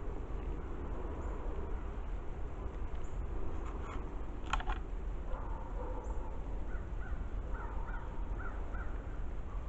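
A bird calling: one short harsh call about halfway through, then a run of about six shorter notes, roughly three a second, near the end, over a steady low rumble.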